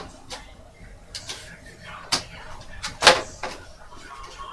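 A series of clicks and knocks from board game parts being handled and set down, the loudest about three seconds in.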